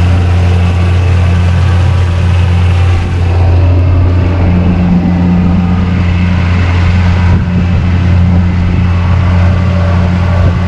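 Boat motor running steadily close by, a loud, even low hum, with water churning and bubbling in its wake.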